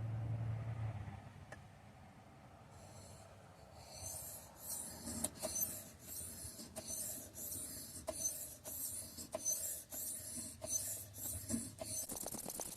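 Steel scissor blade half being sharpened on a Shapton Glass 500-grit whetstone: rhythmic scraping strokes back and forth along the bevel, about three every two seconds, starting about four seconds in, to raise a burr. Near the end the strokes turn quicker and shorter.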